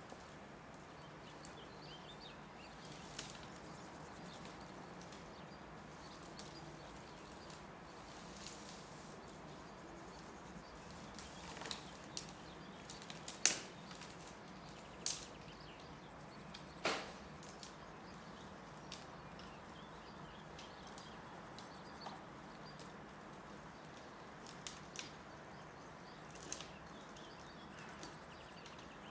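Scattered sharp clicks and taps from hand garden work over a steady outdoor hiss, the loudest taps about halfway through.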